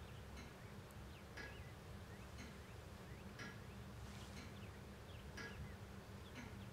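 Faint, even ticking of a pendulum clock, about one tick a second, over quiet room tone, with faint high chirps in the background.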